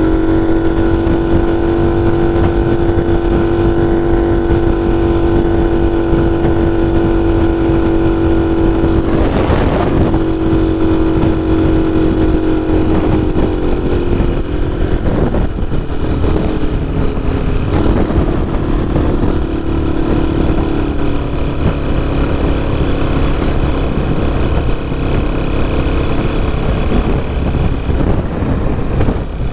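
Honda C90 step-through's small single-cylinder four-stroke engine running under way, with wind rumbling over the microphone. The engine note holds steady at first, breaks briefly about nine seconds in, then rises and falls.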